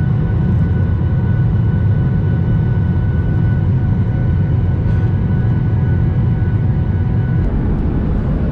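Steady low rumble of an airliner's engines and rushing air heard inside the passenger cabin in flight, with a faint steady high whine over it.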